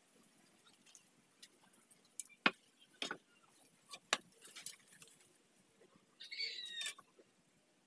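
Light clicks and taps of a steel square being set down and shifted on a wooden plank during pencil marking, a few sharp knocks a second or two apart. Near the end, a short chirp lasting under a second.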